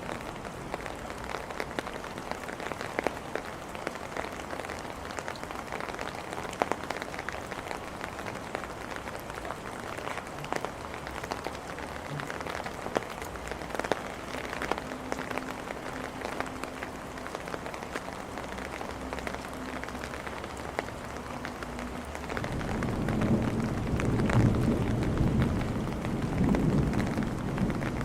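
Steady rain falling on hard surfaces, with many small separate drop hits. About three-quarters of the way in, a louder low rumble of thunder swells up and rolls on.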